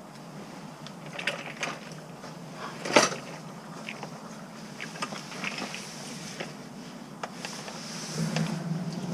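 Scattered clicks, knocks and rattles of hands and tools working under a pickup truck during an oil drain, with one sharp knock about three seconds in. A steady hiss sets in near the end.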